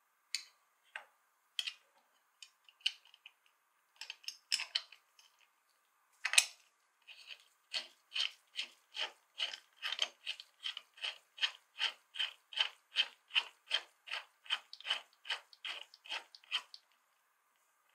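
Small metal clicks and taps as the tobacco cutter's blade is fitted onto its base, then a steady run of light clicks, about three or four a second, as a nut is turned onto the bolt that holds the blade. The clicking stops shortly before the end.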